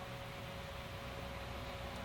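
Quiet room tone: a faint steady hiss with a thin, steady hum and no distinct events.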